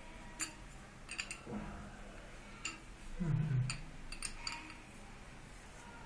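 Scattered metallic clicks and clinks of an open-end spanner and a nut and washer on a washbasin's wall fixing bolt as the nut is fitted and tightened. A short low voice-like sound comes just past halfway and is the loudest part.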